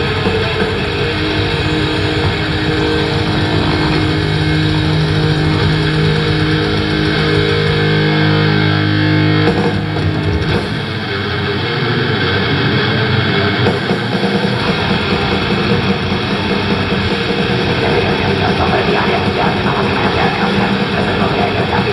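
Live heavy metal band playing loud with distorted electric guitars and drums. Held notes ring through the first half, the sound drops briefly about ten seconds in, then the band launches into fast, dense playing.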